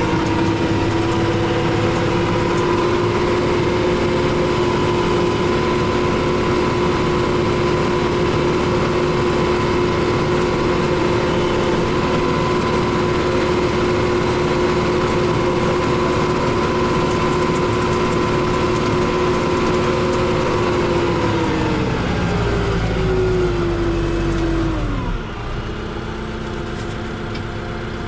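RK 74 tractor's diesel engine, heard from inside the cab, running at steady high revs while driving. About three-quarters of the way through the revs fall away toward idle.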